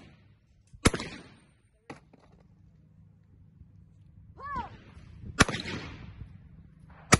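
Shotgun shots fired at clay targets: one shot about a second in, then a short shouted call for the target, a shot about a second after it and a second shot near the end, each shot with a short echo tail.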